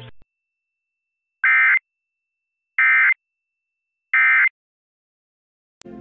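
Emergency Alert System end-of-message code: three identical short bursts of the digital data squeal, evenly spaced about a second and a half apart, signalling the end of the alert. A click near the end, as the programme music cuts back in.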